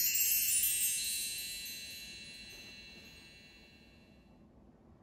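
Chimes ringing out after a quick run of struck notes: many high, bell-like tones fade away gradually over about four seconds until almost nothing is left.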